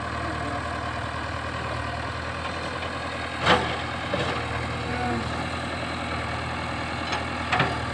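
Heavy diesel engine running steadily at idle. A sharp knock sounds about three and a half seconds in, with a smaller one near the end.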